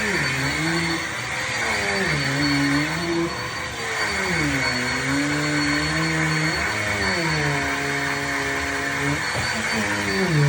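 Vacuum cleaner running steadily with a constant high whine, while long, wavering, voice-like tones rise and fall over it, holding each note for a second or two.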